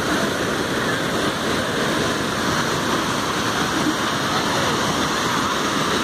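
Fast river water rushing over flat rock shelves and spilling down a small waterfall: a loud, steady rush.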